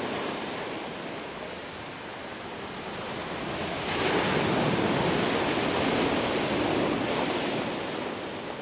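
Ocean surf surging and breaking against the shore where lava enters the sea: a steady rushing wash that swells about four seconds in and eases off near the end.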